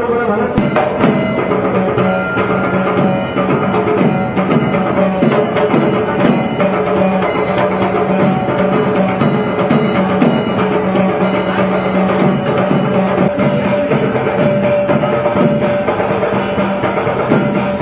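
Music with fast, dense percussion strokes over a steady droning tone.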